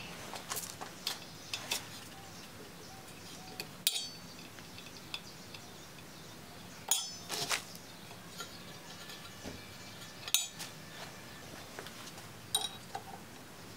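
Metal-on-metal clinks and taps from handling the cast-iron drive pulley of a South Bend lathe and a hex key while working the pulley's set screw: scattered light taps, with a few sharper clinks that ring briefly.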